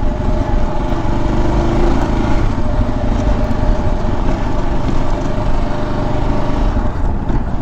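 Motorcycle engine running steadily as the bike is ridden along a dirt trail, with a constant low rumble.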